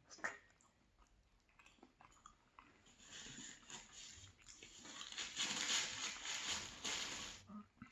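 Close-miked chewing of a very large mouthful of creamy salmon pie, with wet mouth clicks at first and then a denser, louder run of chewing noise from about three seconds in until near the end.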